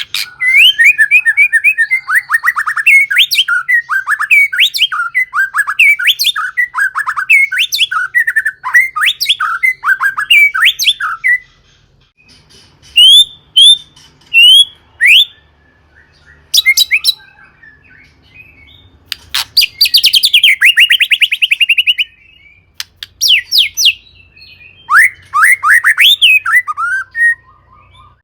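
White-rumped shama (murai batu) in full song: a fast, varied run of chirps and whistles for about eleven seconds. After a short pause come single upward-slurred whistles, a harsh rattling burst about twenty seconds in, and another quick run of phrases near the end.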